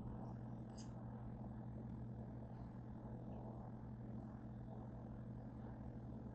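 Steady low hum with a faint background hiss, and a faint click about a second in.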